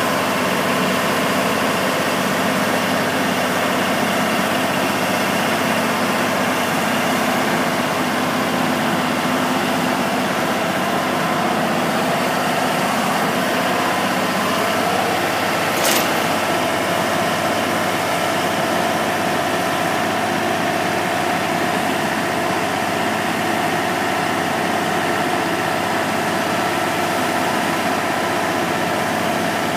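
The 650-plus horsepower Cummins diesel engine of a Toro Progrind 5000 tub grinder running steadily, with one brief sharp click about sixteen seconds in.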